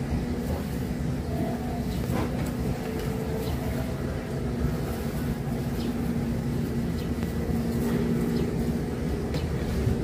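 Steady low mechanical rumble with a constant hum, with a few faint short high sounds scattered through it.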